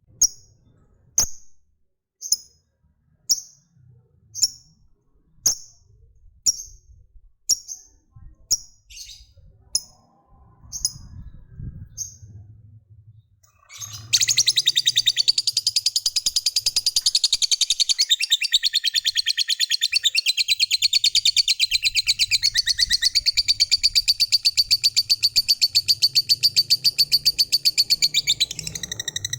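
Lovebird calling: short sharp high chirps about once a second, then about halfway through a long, fast, rattling chatter, the drawn-out 'ngekek' call that Indonesian hobbyists prize in a fighter lovebird.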